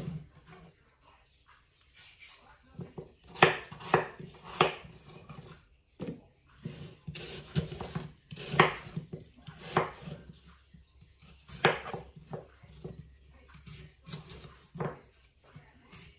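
Kitchen knife slicing a peeled apple on a wooden cutting board: irregular sharp knocks as the blade cuts through and strikes the board.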